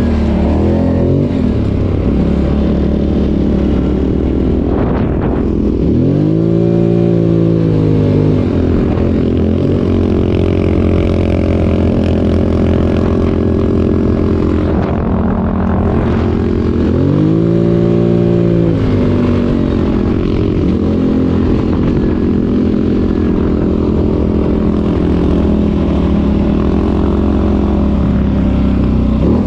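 ATV engine running steadily under way, its pitch rising and falling twice as the throttle is opened and eased off, about six and seventeen seconds in.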